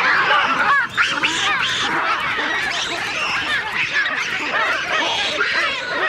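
A troop of baboons screaming in alarm: many overlapping short, arching calls at once, without a break.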